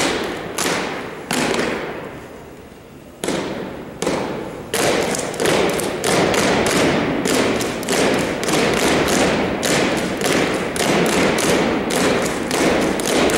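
Unarmed drill team's stomps and strikes, made in unison on a hardwood gym floor and echoing in the hall. A few single strikes come with pauses between them, then from about five seconds in a fast, steady run of stomps.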